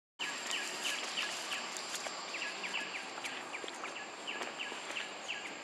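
Outdoor ambience: a steady high-pitched whine with rapid, repeated short chirps, several a second, over a constant hiss. Faint scattered ticks and rustles of dry leaves come from young monkeys scuffling on the ground.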